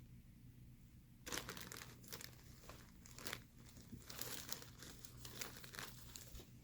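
Plastic bag crinkling faintly in irregular rustles as its contents are handled and pulled out, starting after about a second.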